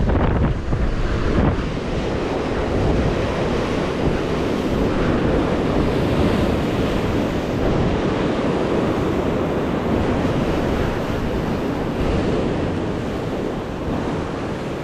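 Sea waves washing on a rocky shore, heard through steady wind buffeting the microphone.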